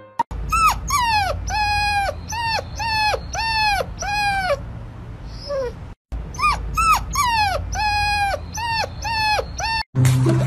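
A brown puppy whining in a series of short, high-pitched calls that each fall in pitch, about two a second, with a brief break about six seconds in.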